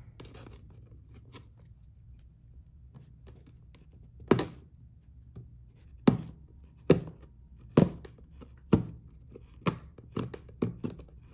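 Price tags being picked and torn off merchandise packaging by hand: a run of sharp clicks and short scrapes, one loud one a few seconds in, then roughly one a second through the second half.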